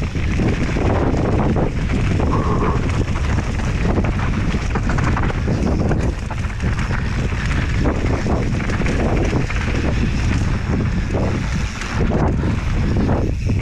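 Wind buffeting the microphone of a camera on a mountain bike moving fast down a trail, mixed with constant clatter and jolts from the bike over rough ground.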